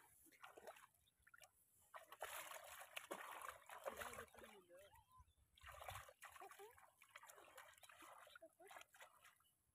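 Faint sloshing and splashing of hands working in the shallow muddy water of a flooded rice paddy, groping in the mud for fish, in irregular bursts.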